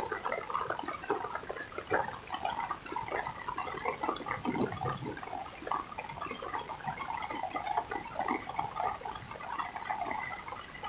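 Heavy rain falling, a dense irregular patter of drops and splashes.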